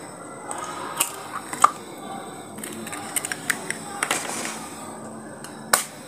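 An egg being cracked against a plastic bowl and opened into it: a series of sharp taps and clicks with shell crackle, and a louder click near the end.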